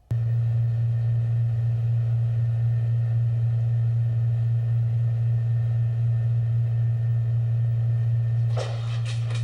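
A loud, steady low hum on one unchanging pitch that switches on abruptly. Near the end a short burst of noisy sound is heard over it.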